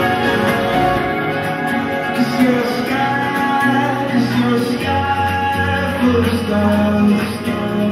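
A song playing: a singer's voice over instrumental backing, at a steady level.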